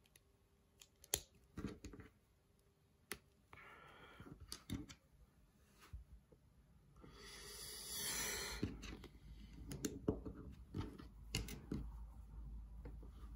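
Small plastic building bricks being handled and pressed together: scattered sharp clicks, with a louder rustle lasting about a second and a half, about seven seconds in.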